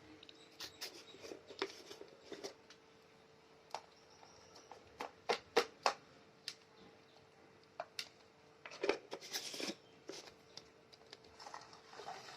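Scattered light clicks, taps and rustles of small objects being handled, over a faint steady hum; the busiest stretch of clicks comes about halfway through.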